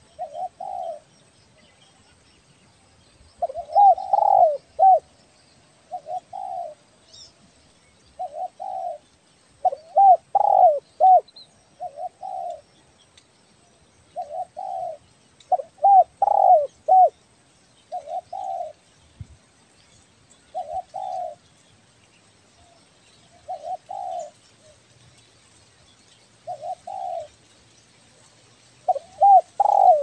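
Spotted dove (tekukur) cooing: short phrases about every two seconds, with a longer, louder cooing phrase four times.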